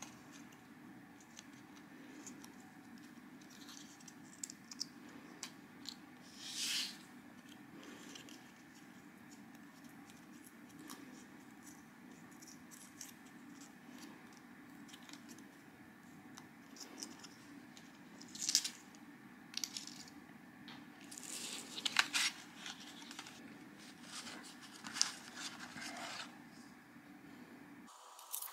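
Thin white card being creased and handled between the fingers: scattered brief dry rustles and crinkles over a steady low hum, a few of them louder.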